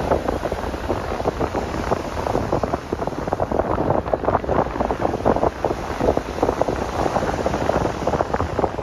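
Strong wind buffeting the microphone in uneven gusts, heard as a dense, rapid crackle.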